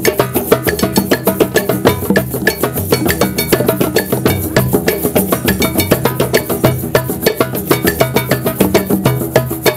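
Drum circle: many hand drums and other percussion instruments played together in a fast, dense, steady rhythm.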